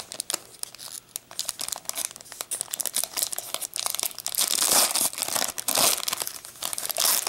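Foil wrapper of a Magic: The Gathering booster pack crinkling and tearing as it is pulled open by hand. The crackling grows louder in the second half as the wrapper is peeled back from the cards.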